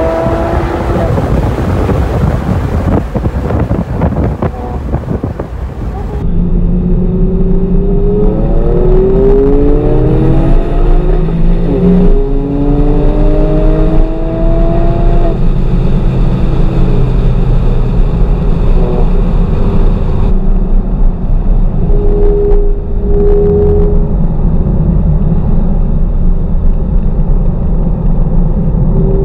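Porsche 911 Targa 4S twin-turbo flat-six at full throttle on a race track, heard from inside the cabin. The engine pitch climbs and drops back several times as it accelerates up through the gears, then holds steadier.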